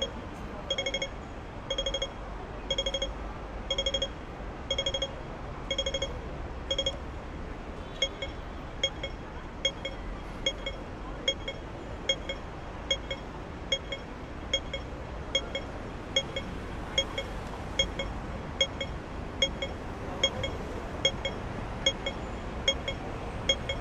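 Pedestrian crossing's audible signal in Hong Kong: short bursts of rapid electronic pips about once a second, then from about seven seconds in a slower run of single pips, about one and a half a second, as the crossing changes phase. A low hum of street traffic lies underneath.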